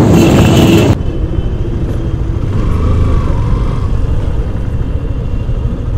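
Motorcycle running under way through city traffic. Heavy wind noise on the microphone for about the first second, then it cuts suddenly to a quieter, steady engine and traffic rumble.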